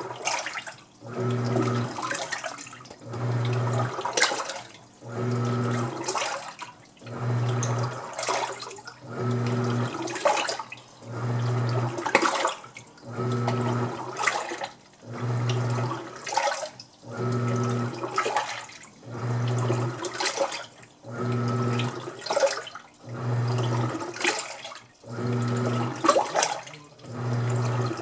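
Washing machine agitating a tub full of water during a tub clean with oxygen bleach. The motor hums in regular strokes about every two seconds as the pulsator reverses, with water sloshing and splashing around each stroke.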